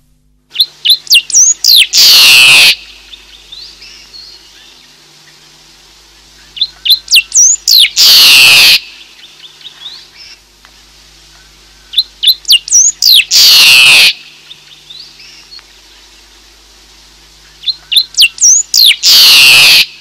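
A songbird singing the same song four times, about six seconds apart. Each song is a quick run of sharp, high notes that ends in a loud, harsh burst lasting under a second.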